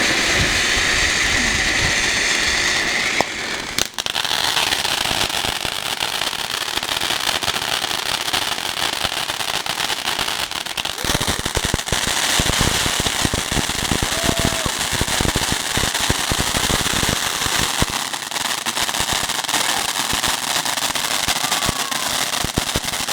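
Fireworks going off: a steady hiss for the first three seconds or so, a sharp crack near four seconds, then continuous rapid crackling pops.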